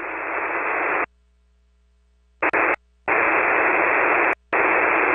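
Shortwave receiver static on single-sideband voice, an even hiss with no voice in it. It cuts off to silence after about a second, then comes back in short stretches broken by sudden brief dropouts.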